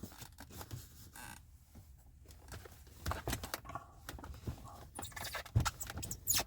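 Rustling, light scrapes and small knocks of towels and washcloths being stuffed and arranged in a storage cubby, with one sharper knock about five and a half seconds in.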